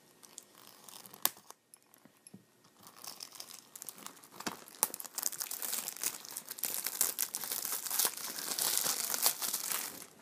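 Plastic shrink wrap on a DVD case being torn open and pulled off, crinkling and crackling. There is one sharp click about a second in, and the crackling turns dense about three seconds in, loudest near the end.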